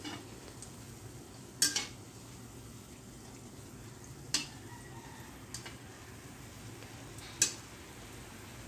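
Batter-coated Oreos deep-frying in oil in a steel wok, a low steady sizzle. A metal spatula clinks sharply against the pan three times as it turns them.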